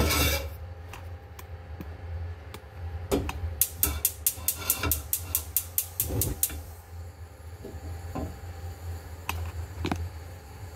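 Gas stove burner igniter clicking rapidly, about five clicks a second for a second or two, as the burner is lit, over a steady low hum.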